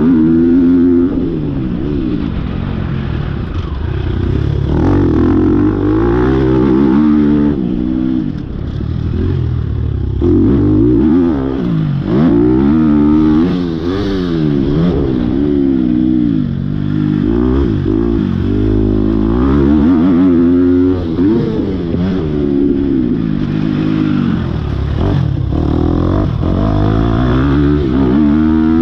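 Motocross dirt bike engine revving up and dropping back again and again as the throttle is opened and closed around the track, heard close up from an on-bike camera.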